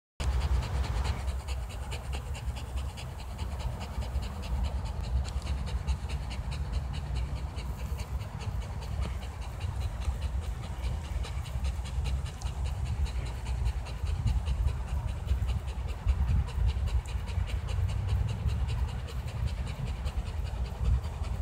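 A pit bull-type dog panting fast and steadily with its mouth open, over a low rumble.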